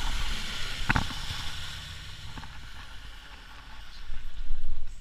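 Speedboat running fast through a turn: a steady rush of water and wind noise from the churning wake. There is a knock about a second in, and the rush grows louder near the end.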